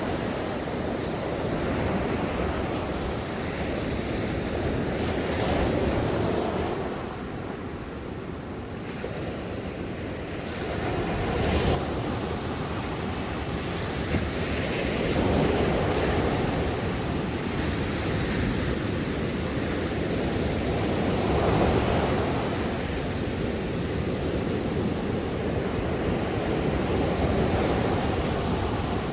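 Ocean waves breaking and washing on a shore, a continuous surf rushing that swells and eases every few seconds, with a lull about a third of the way through.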